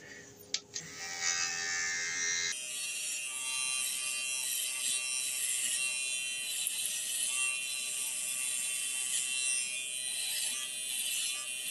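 Enchen Boost cordless hair clipper buzzing steadily as it trims neck stubble. About two and a half seconds in, the sound turns abruptly into a fuller, hissier buzz that then holds steady.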